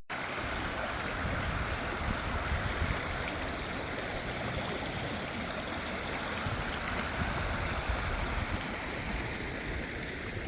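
Steady rushing of a flowing stream, an even, unbroken water sound.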